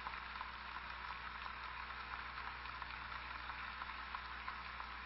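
Crowd applause, a dense steady crackle of clapping, from a film soundtrack played over a loudspeaker and picked up across the room.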